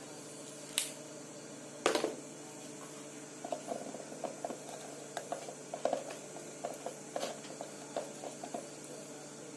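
Limes being squeezed by hand: faint, irregular wet squelching and crackling, starting a few seconds in. Before it come two knocks about a second apart, the second louder with a brief ring.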